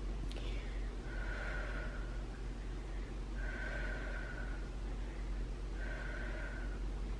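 A person breathing slowly through the nose with a soft whistle on each breath: three breaths about two and a half seconds apart, over a low steady hum.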